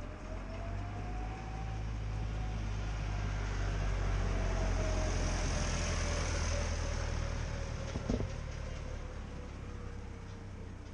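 A vehicle engine running, growing louder to a peak around the middle and then fading, its pitch rising briefly and then slowly falling. One sharp click about eight seconds in.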